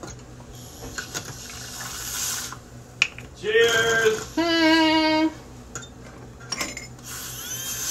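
A person's voice making two drawn-out wordless sounds a little before the middle, the second lower and held steady for almost a second, with a few light clicks before them.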